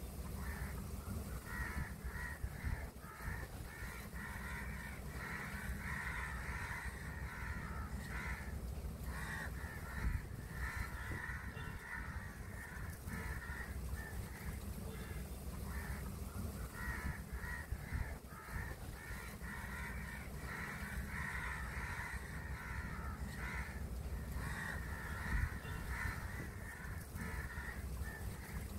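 Many crows cawing, harsh calls overlapping in bursts with a lull about halfway through, over a steady low rumble.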